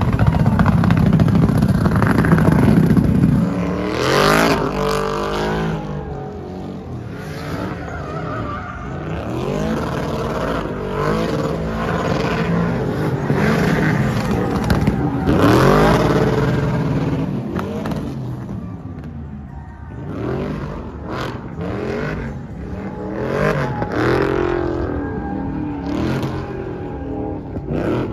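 Truck engines revving and driving by, their pitch rising and falling again and again. The loudest stretches come about four seconds in and around fifteen seconds in.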